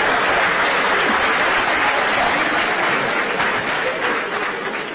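An audience applauding, a dense clatter of many hands clapping that begins to fade near the end.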